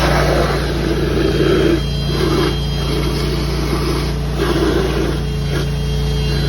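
Ditch Witch vacuum excavator running steadily, its engine and vacuum blower making a loud hum, with an uneven rushing that comes and goes as water and mud are sucked up the hose.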